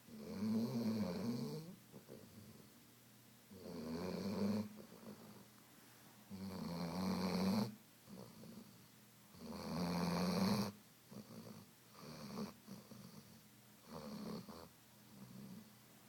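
Weimaraner snoring: four long snores about three seconds apart, then several shorter, softer ones near the end.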